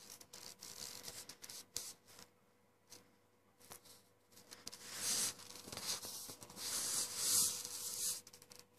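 Handling noise on a phone's microphone: skin and clothing rubbing and scraping against the phone as it is moved about. It comes in scattered scratchy bursts that are louder from about five seconds in.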